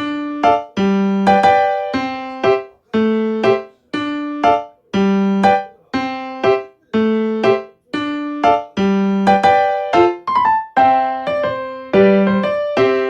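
Background music: a gentle electric-piano melody, one note or chord about every second, each struck and fading away.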